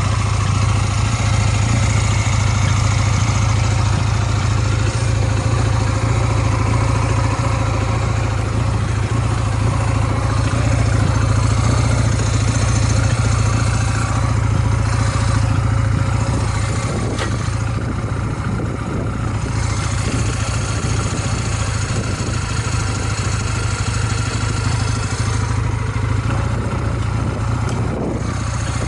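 Honda Rebel 250 (MC13) twin-cylinder engine idling steadily, with no abnormal noises, as the seller describes it.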